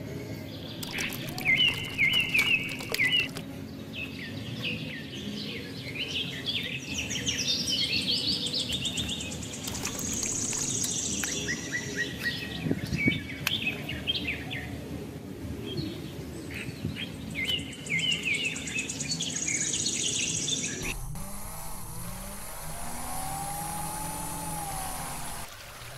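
Small birds chirping and calling in repeated short phrases over a low hum. About 21 seconds in, this gives way to water pouring steadily from the miniature pump's outlet pipe.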